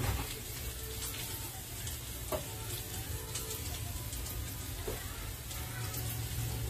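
New York strip steaks searing in a hot de Buyer carbon steel pan: a steady frying sizzle scattered with small pops and crackles, over a low steady hum.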